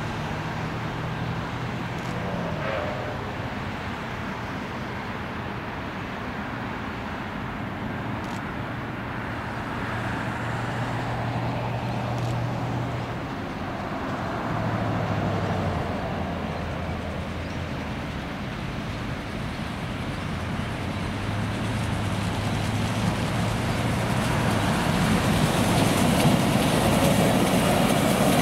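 Heritage train led by the R class Hudson steam locomotive R707 approaching. The sound builds up over the last several seconds as the train comes close and passes.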